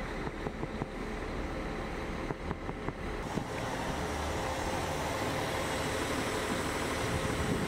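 Bus engine idling, a steady low hum, with a few light clicks and knocks in the first few seconds.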